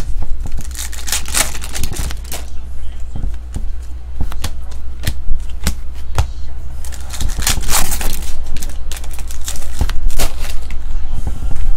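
Football trading cards flicked and shuffled by hand, a stream of sharp clicks, with flurries of crinkling from a foil card-pack wrapper being handled, loudest about eight and ten seconds in. A steady low hum runs underneath.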